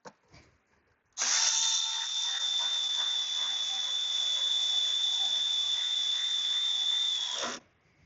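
Handheld power driver's motor running at a steady speed for about six seconds, starting about a second in and cutting off suddenly, with a steady high whine.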